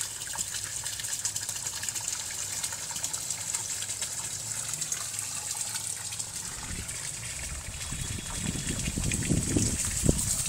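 Garden pond water feature splashing steadily, a constant hiss of falling water. Over the last few seconds, low rustling bumps rise over it, loudest near the end.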